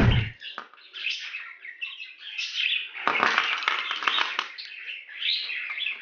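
Budgerigars chattering and warbling, a busy, broken run of chirps and squeaks.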